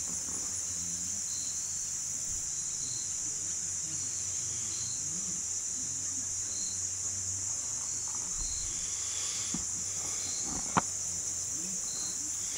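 A steady, high-pitched insect chorus, with short higher chirps about once a second over it. A single sharp click near the end.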